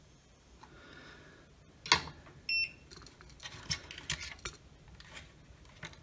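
A sharp click about two seconds in, followed at once by a short, high electronic beep, then a run of light clicks and knocks as the small plastic LED projector case and its circuit board are handled and repositioned.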